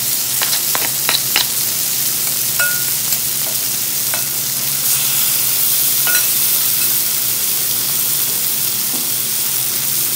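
Tuna sisig sizzling in melted butter on a hot metal sizzling plate, a steady frying hiss. Near the start a wooden spatula and spoon scrape and tap against the plate in a quick run of clicks.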